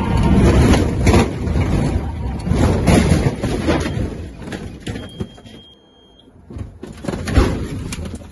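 Inside the cabin of a single-engine light aircraft as it careens off the runway into grass: heavy rumbling, rattling and knocking as the airframe jolts over rough ground, fading out near the middle. Near the end come a few more knocks and one sharp thump.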